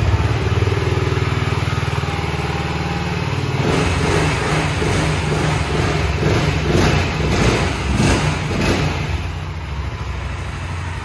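BSA Gold Star 650's single-cylinder engine running at idle, freshly started, with the throttle blipped several times from about four seconds in.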